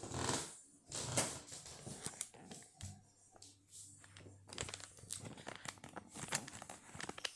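Irregular rustling and crinkling noises with scattered clicks.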